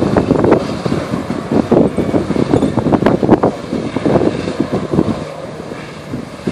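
Personal watercraft (jet ski) engine running hard to power a flyboard's water jets, a loud rushing noise that surges irregularly and eases off near the end.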